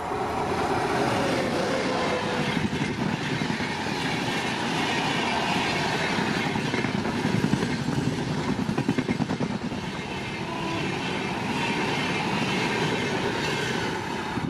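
An Uday Express double-decker passenger train hauled by a WAP-7 electric locomotive passes close at speed. It makes a continuous rush of wheel and rail noise, with a rapid clickety-clack of wheels over rail joints that is loudest about halfway through as the coaches go by.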